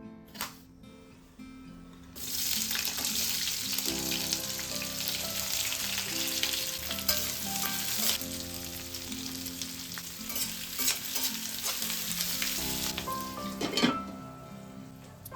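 Food frying in hot oil in a pan: a sizzle starts suddenly about two seconds in and dies down near the end, followed by a sharp knock. Soft background music plays underneath.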